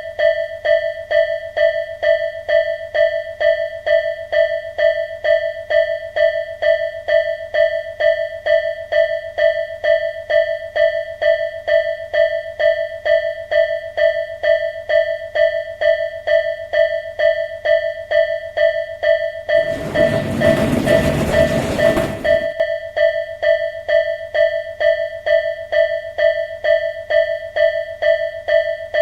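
Japanese level-crossing alarm ringing its electronic bell in a steady, even rhythm: the signal that a train is approaching. About twenty seconds in, a train rushes through the crossing for a couple of seconds while the bell keeps ringing.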